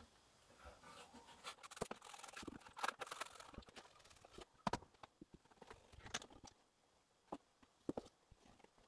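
Faint scattered clicks, taps and scrapes of hand work at a timber stud wall, with a few sharper knocks and a short quiet gap about two-thirds of the way through.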